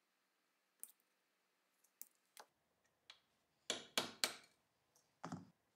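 A few small metal clicks of a steel tool against rusty Luger P08 parts, then three quick sharp metal taps and a fourth about a second later as a pin is worked with a punch.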